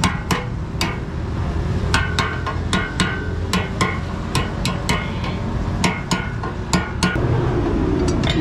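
Hammer striking metal in quick, irregular taps, about two or three a second, each with a short metallic ring, over a steady low background rumble.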